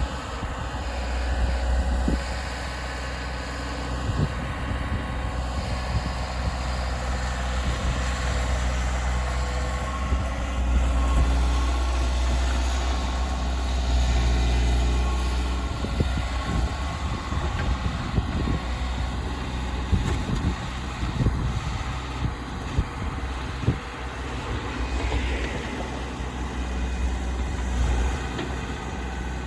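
Volvo ECR145 excavator's diesel engine running steadily, its low drone swelling and easing as it works. Scattered knocks and clunks come from the bucket digging through the beaver dam.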